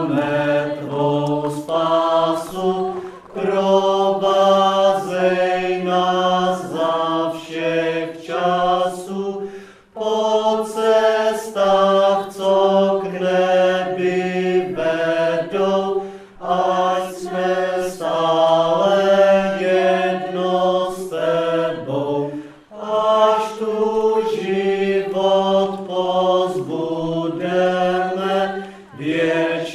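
Background music of voices chanting in slow, held notes, phrase after phrase with short breaths between.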